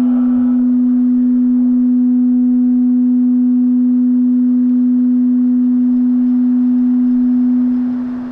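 Loud steady low tone held at a single pitch, with a fainter overtone, fading out near the end.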